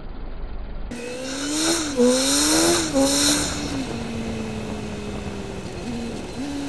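Mazdaspeed3's turbocharged 2.3-litre four-cylinder heard from inside the cabin. After a low rumble, about a second in, the engine revs up hard with two upshifts, its pitch climbing and dropping twice. It then settles to a steady note that falls slowly, with a brief dip and rise near the end.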